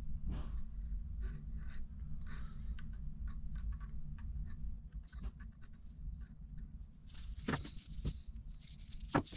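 A thin hand tool scraping and tapping lightly at the charging-handle area of an AR-15 upper held in a vise, spreading silicone sealant: a run of short, soft scratches and ticks over a steady low hum, then a few louder knocks near the end.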